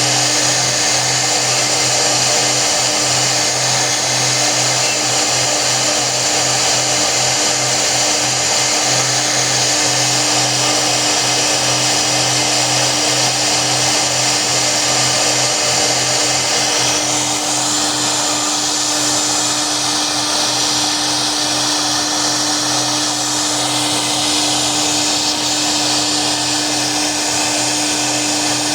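CNC router spindle running steadily as it cuts, a constant motor hum under a dense cutting noise. The cutting noise changes in character about seventeen seconds in.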